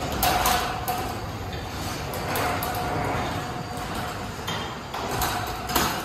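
Genie 4124 garage door opener running, its drive moving the sectional door along the rail with a steady mechanical rattle, a thin whine that comes and goes, and a few sharp clicks.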